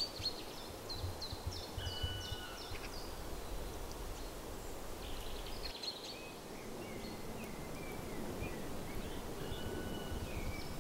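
Small songbirds calling outdoors: a quick run of short, falling chirps in the first few seconds, then scattered whistled notes, over a low rumble that drops away about six seconds in.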